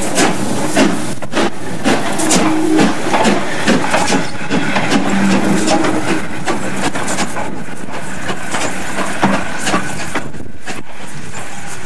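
LNER Thompson B1 4-6-0 steam locomotive No. 61264 moving off slowly under steam: a run of sharp, irregular exhaust beats and clanks that thin out after about nine seconds.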